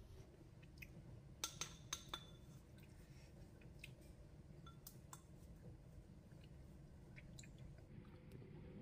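Metal spatula clinking and scraping against a stainless steel saucepan as thick cooked upma is scooped out: a few sharp clinks about one and a half to two seconds in, then scattered fainter ones over near silence.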